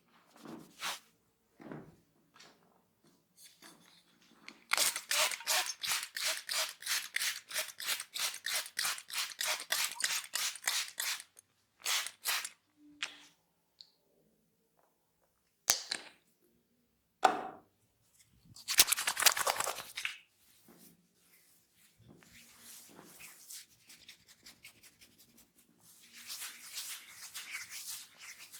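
A barber's hands tapping rapidly on a head during a head massage: a steady run of sharp taps, about four or five a second, for several seconds. A few single sharp snaps follow, then a denser rasping burst and softer rubbing near the end.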